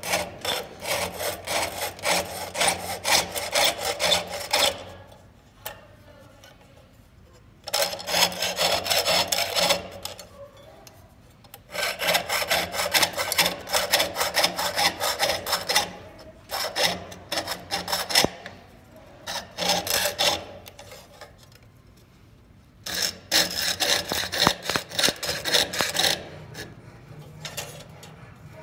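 Jeweler's saw blade cutting through thin copper sheet on a wooden bench pin, in quick rasping up-and-down strokes. The sawing comes in five runs of a few seconds each, with short pauses between them.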